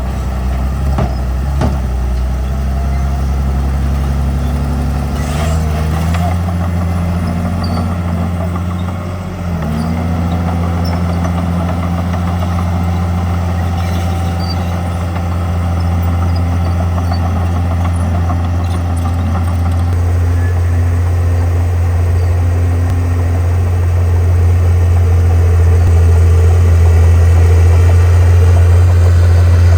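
Komatsu bulldozer's diesel engine running steadily as a low drone. Its pitch steps up about five seconds in and again about ten seconds in, and it grows louder near the end.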